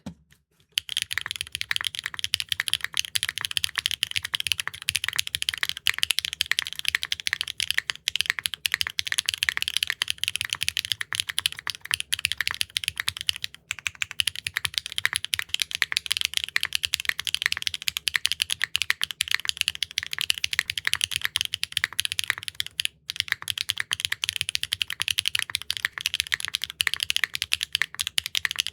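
Fast, continuous typing on a Neo65 Core Plus mechanical keyboard fitted with HMX linear switches: a dense run of clacky keystrokes, with brief pauses about 13 and 23 seconds in.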